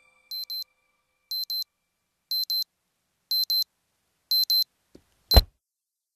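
Red square alarm clock beeping in quick pairs about once a second, each pair a little louder, until a hand slaps it off with a sharp thump about five seconds in, cutting the last beep short.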